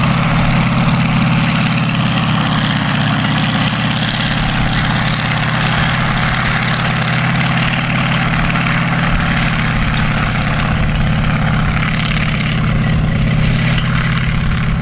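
M4 Sherman tank's engine running steadily and heavily as the tank drives across grass, with a broad rushing noise over the low engine note.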